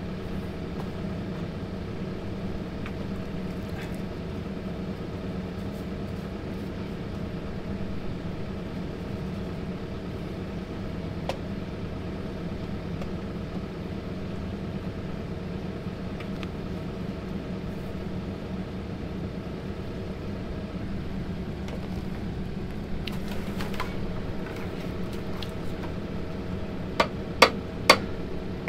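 An engine idling steadily. Near the end come several sharp knocks, a second or less apart.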